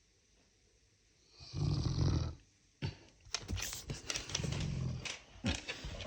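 Cane Corso dog snoring in its sleep: two loud, rough snores, the first about a second and a half in and the second near the two-thirds mark, with short clicks and softer breathing noise between them.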